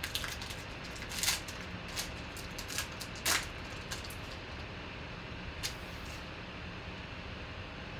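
Foil trading-card pack wrapper torn open and crinkled, a few short crackles in the first few seconds, then the card stack slid out of the wrapper with one more brief crinkle. A steady room hum underneath.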